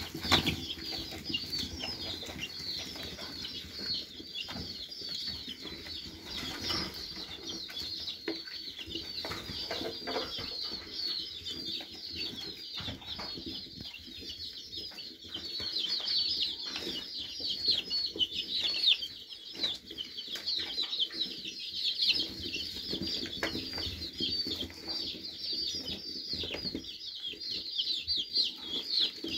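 A flock of young chicks peeping constantly, many short, high, falling peeps overlapping, with occasional wing flutters and scuffling.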